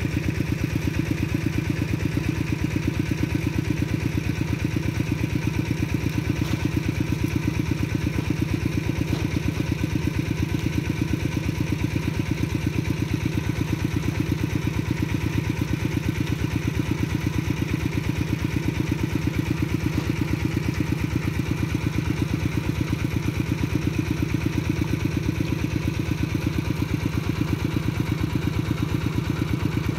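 A small engine running steadily at idle, with a rapid, even beat.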